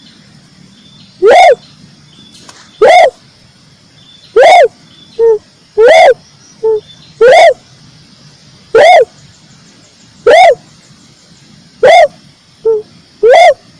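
Red turtle dove calling: a short call that rises and falls in pitch, repeated about every second and a half, with shorter, lower notes between some of them. The calls are loud enough to clip and sound distorted.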